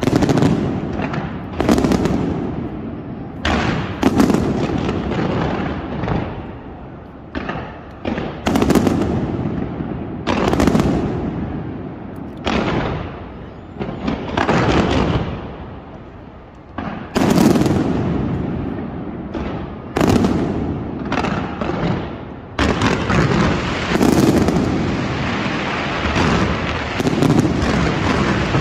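Fireworks display: loud sharp bangs, one every second or two, each trailing off in a decaying rumble. About three-quarters of the way through, a dense continuous rush of noise sets in beneath further bangs.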